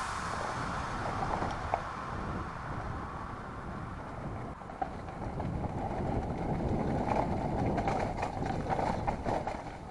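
Mountain bike rolling fast down a rocky dirt trail, heard from a helmet-mounted camera: rumbling tyres and wind on the microphone, with knocks and rattles from the bike over rough ground that grow busier in the second half.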